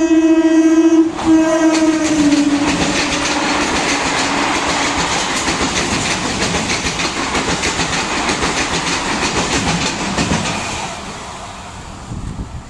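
Suburban EMU electric train passing at speed: its horn blows loud, breaks off about a second in, then sounds again and slides down in pitch as the train goes by. Its wheels then clatter rapidly over the rail joints as the cars pass, fading away near the end.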